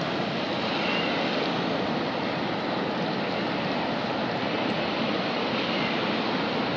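Steady rush of river water pouring over a dam's spillway.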